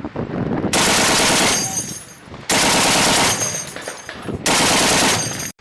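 M2 .50-calibre heavy machine gun firing three bursts of about a second each, each followed by fading echo.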